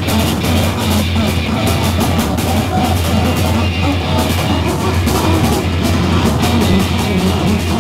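Loud live noise rock from a band: distorted guitar over a drum kit, with frequent drum and cymbal hits.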